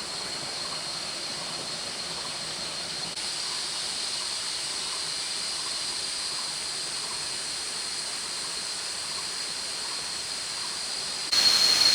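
Steady rush of a flowing forest stream, with a constant high-pitched whine over it. It gets suddenly louder shortly before the end.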